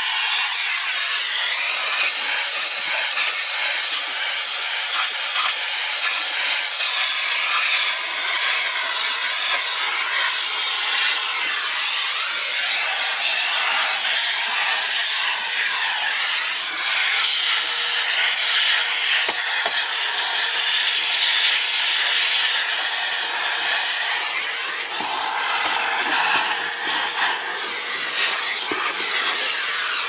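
Numatic Henry canister vacuum cleaner running, its suction making a steady loud hiss as the nozzle is worked over the car's interior trim, with rubbing and scraping that come and go.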